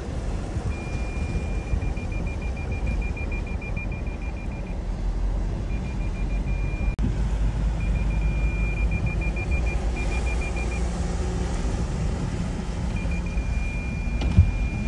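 Low steady noise of a car driving through floodwater, heard from inside the cabin, with a high electronic warning beep from the car sounding in fast repeated runs of a few seconds with short gaps. A single sharp knock near the end.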